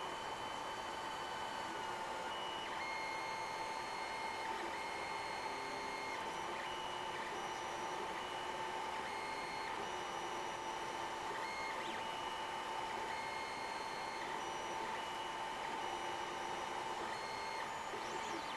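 3D printer running: its stepper motors whine in clear tones that switch on and off every second or two as the head moves, over a steady hum and hiss.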